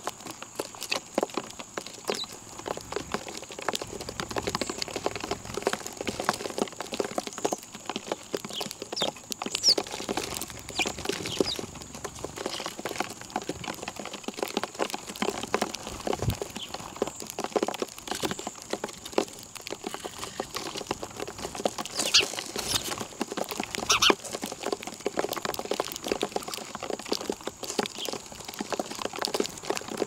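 Birds pecking at scattered feed, a dense irregular run of quick small taps, with now and then a brief high chirp over a faint steady high tone.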